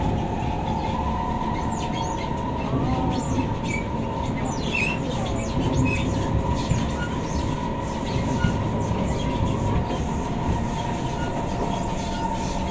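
Inside a Kawasaki–Nippon Sharyo C151 MRT electric multiple unit in motion: steady rumble of the wheels on the rails, with a steady high whine running through it.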